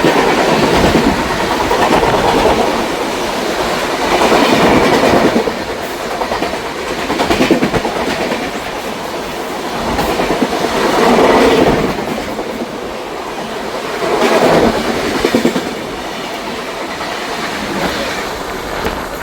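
A train passing close by, its wheels clattering over the rail joints, the sound swelling and easing in surges every three to four seconds.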